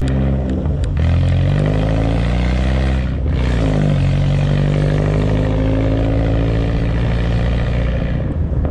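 BMW car engine revving hard while drifting on ice: its pitch climbs over the first second, drops sharply about three seconds in, then climbs again and is held high.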